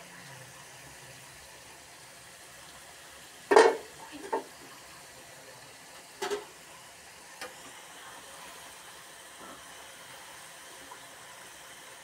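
Potato fries deep-frying in oil in a black iron wok: a faint steady sizzle. A few sudden loud clinks from the perforated steel skimmer against the pan break through it, the loudest about three and a half seconds in, with others around four, six and seven seconds in.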